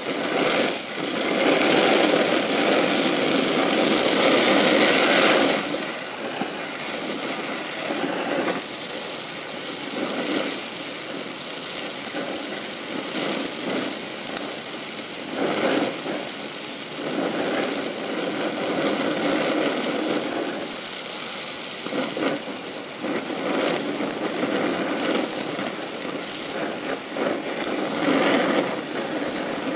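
DHC2000 oxyacetylene torch flame hissing steadily while gas-welding a chromoly tube joint. It is louder for the first five or six seconds, then a little softer with brief swells every several seconds.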